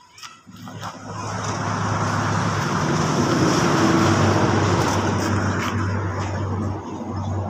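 A motor vehicle's engine running close by, with a steady low hum under a broad rushing noise; it comes in about half a second in, grows over the next second or so, then holds steady.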